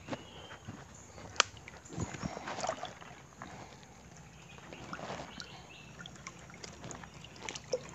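Shallow stream water sloshing and splashing as a hand and legs move through it, with scattered sharp clicks and knocks, the loudest about a second and a half in.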